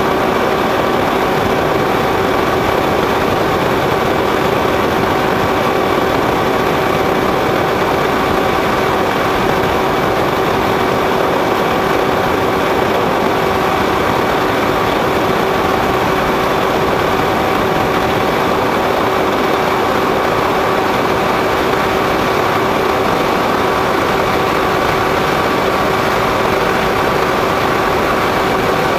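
A radio-controlled foam model airplane in flight, heard through its onboard camera's microphone: the motor and propeller give a steady hum of unchanging pitch over loud rushing wind noise.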